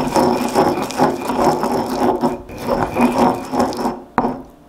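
Stone pestle grinding garlic and salt into a paste in a volcanic-rock molcajete: a gritty rubbing and scraping of stone on stone. The grinding fades about four seconds in, followed by a single sharp knock.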